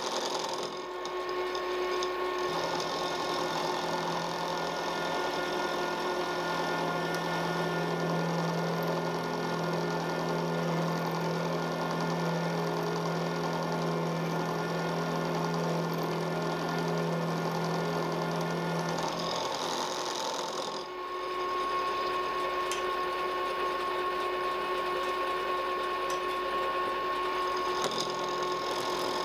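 Milling machine running under load as a 10 mm end mill takes a 2 mm cut through mild steel: a steady motor and gear whine with cutting noise over it. About two-thirds of the way through the sound dips briefly and the mix of tones changes.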